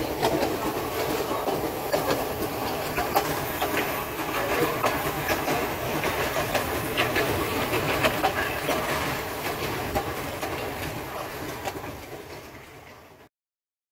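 Narrow-gauge steam train under way: a steady running rattle with wheels clicking over rail joints. It fades over the last few seconds and stops abruptly just before the end.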